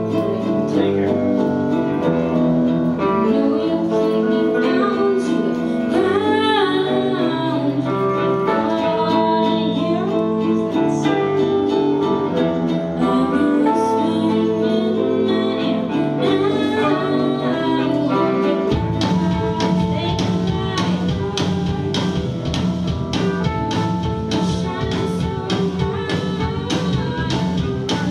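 Live band playing a song: a female voice sings over strummed ukulele and guitars, and about two-thirds of the way through a drum kit and bass come in with a steady beat.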